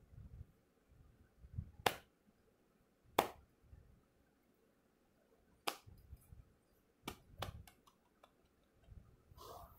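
Hands working the hair of a mannequin head close to the microphone: soft rustling and handling noise broken by several sharp clicks and snaps, the loudest about two and three seconds in, as the hair is gathered and tied into a ponytail.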